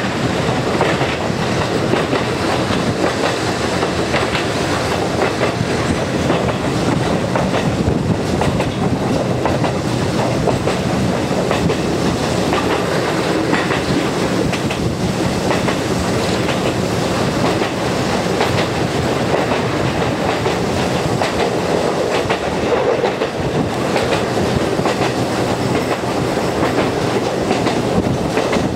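Konan Railway Owani Line electric train running at speed, a steady rumble with wheels clacking over the rail joints.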